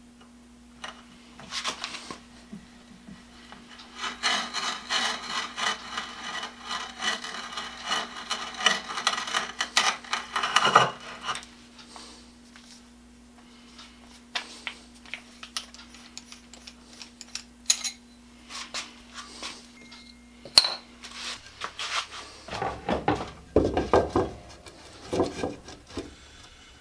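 Hand saw cutting wood: several seconds of quick, even back-and-forth strokes, with scattered knocks and clicks of wood being handled before and after, and a few lower, heavier rubbing strokes near the end.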